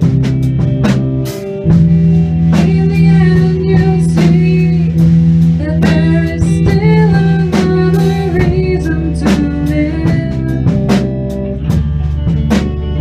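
A band playing a song: a drum kit keeps a regular beat under sustained bass notes and guitar, with a melodic lead line that bends in pitch over it.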